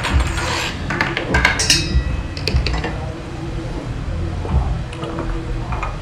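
Cutlery and dishes clinking and clattering, a quick run of sharp clicks in the first couple of seconds, then a few scattered ones.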